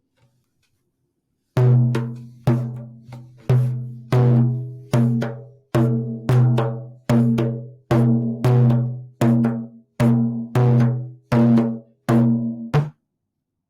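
A low-pitched drum struck repeatedly at an unhurried, uneven pace, about a dozen and a half strokes, all on the same note. Each stroke rings and fades before the next, and the last is cut short near the end.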